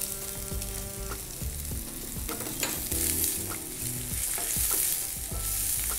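Chopped onion, ginger and garlic sizzling in hot oil in a steel pan, stirred and scraped with a wooden spatula in short irregular strokes. The onion is being cooked only until soft, not browned.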